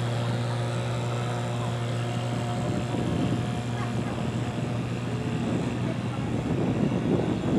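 Boat engine running at a steady low drone, with a rougher rushing noise joining about three seconds in.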